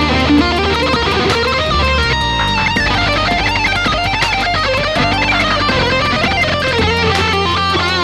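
Electric guitar playing a fast, busy lead line, with some held notes shaken with vibrato, over a backing track with bass and drums.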